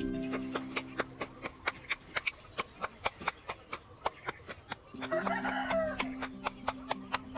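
Background music with a steady ticking beat, about four ticks a second, over held notes. A rooster crows briefly about five seconds in.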